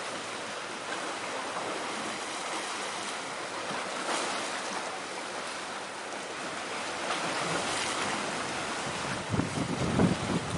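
Waves washing in as a steady hiss of surf that swells briefly about four seconds in. Gusts of wind buffet the microphone near the end.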